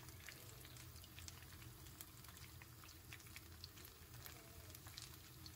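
Faint sizzling and crackling of hot oil around battered chicken pakoras deep-frying in a pan: irregular sharp pops over a soft hiss, with a steady low hum underneath.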